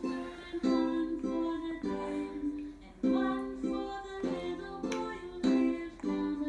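Music: a simple melody of plucked-string notes, each starting sharply and fading, one after another.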